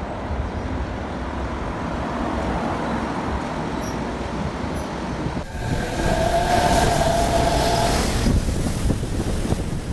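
Monorail trains running on elevated track, with street traffic noise around them. About five and a half seconds in the sound changes abruptly to louder running noise with a steady whine that fades out about two and a half seconds later.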